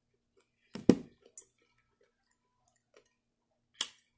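A fork clicking against a glass salad bowl as the salad is stirred: a loud thump about a second in, a smaller click just after it, and a bright clink near the end.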